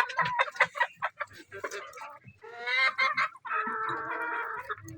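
Domestic hens clucking: a quick run of short clucks, then two longer drawn-out calls in the second half.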